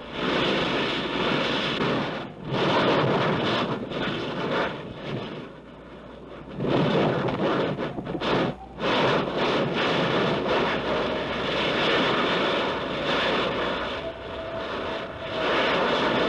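Lava fountaining and spattering from an erupting volcanic vent: a loud rushing noise that surges and falls back unevenly, with short lulls about two seconds in, around five to six seconds in, and near eight and a half seconds in, as the gas-driven bursts of lava rise and subside.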